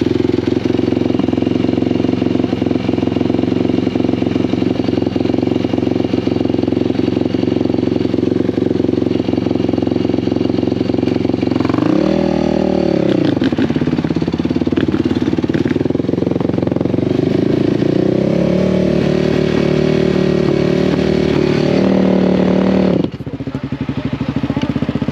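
ATV engine running steadily under way, with a quick rev up and back down about twelve seconds in. It then runs at a higher pitch for several seconds before dropping back near the end.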